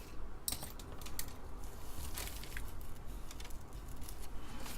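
Scattered small clicks and light rattles of components and tools being handled on a workbench.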